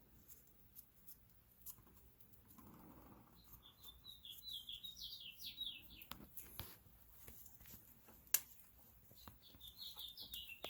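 Faint bird chirping: two runs of quick high chirps, the first in the middle and the second near the end, with a few soft clicks and knocks between.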